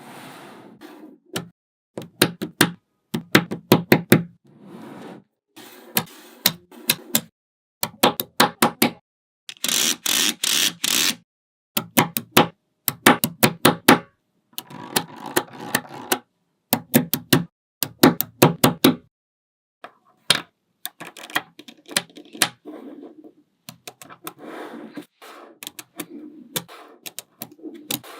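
Small magnetic balls clicking and snapping together as they are placed, in quick clusters of sharp clicks, with a denser stretch of rattling about ten seconds in.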